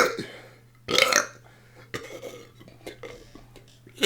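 Deliberate burps in a row: one trails off at the start and a short one follows about a second in. Then come faint small noises until a long burp begins right at the end.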